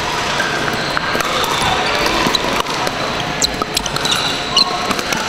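Pickleball paddles striking the hollow plastic ball, with scattered sharp pocks and ball bounces from several courts at once over the steady din of a busy sports hall, echoing in the large room.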